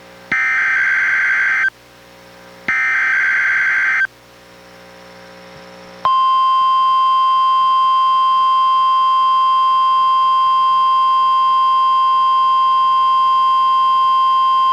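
NOAA Weather Radio Required Weekly Test signal from a weather radio receiver: two short bursts of SAME digital header data tones about a second apart, then, after a pause of about two seconds, the steady 1050 Hz NWR warning alarm tone sounding continuously.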